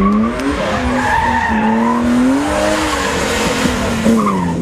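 BMW E30's engine revving hard as the car slides around the slalom cones, its tyres squealing on the tarmac. The engine note climbs in the first half second, holds high with small wavers, and drops about four seconds in.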